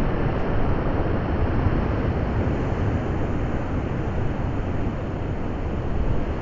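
Steady rushing wind on the microphone with the low rumble of sea surf, no distinct events.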